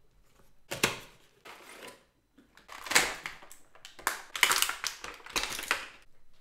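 Cardboard toy box and clear plastic packaging tray being opened and handled: irregular crinkling and crackling in quick bursts, loudest in the middle and latter half.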